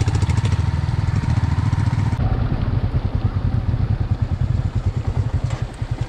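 Motorcycle engine running with a steady, rapid, even beat.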